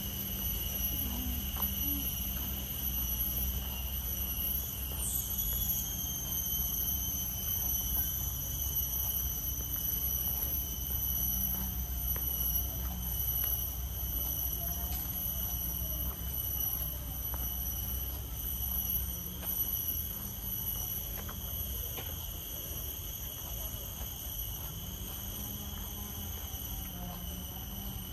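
Steady high-pitched insect whine from the surrounding tropical vegetation, its pitch lifting briefly about five seconds in.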